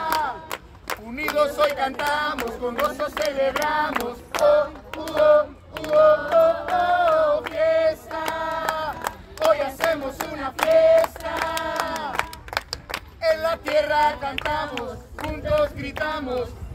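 A group of people singing together with hand clapping along, in long held notes.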